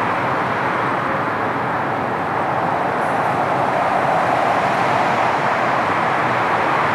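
Four rear-mounted Soloviev D-30KU turbofans of an Ilyushin Il-62M airliner at climb power after takeoff: a steady jet roar that grows slightly louder about four seconds in.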